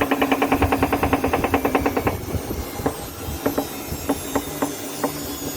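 Drean Blue 6.8 washing machine spinning with a rapid, even knocking of about ten knocks a second over a steady hum, which stops abruptly about two seconds in; a few scattered knocks follow. This is the noise the machine makes when the spin speed rises, and it persists after the tensioners and the drum centring were checked.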